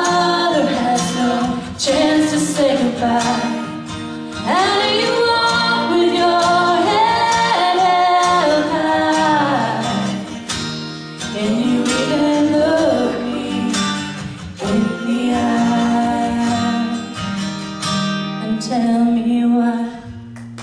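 A young woman singing solo into a microphone over instrumental accompaniment, her sung notes bending and held over sustained low backing notes.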